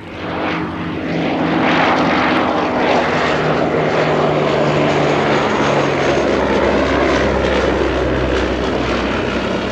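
Westland Lysander's nine-cylinder radial engine and propeller running loud as it flies on display, swelling up in the first second. The engine note dips slightly about halfway through, and a deeper rumble comes in later.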